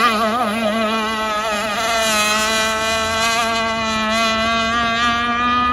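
Gas-powered Enforcer Stingray RC hydroplane's two-stroke engine buzzing at high speed. Its pitch wavers for the first couple of seconds as the boat passes close, then holds steady as it runs away across the water.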